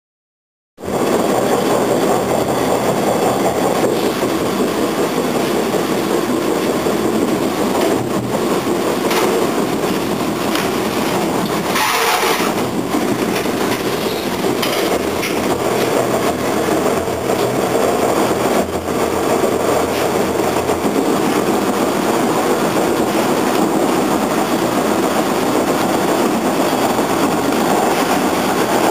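Bombardier T1 subway car running along the track, heard from inside: steady rumble and wheel-on-rail noise with the repeated thumping the car makes whenever it is moving at 10 km/h or more. The sound starts about a second in, and around the middle there is a brief rush of hiss with a falling tone.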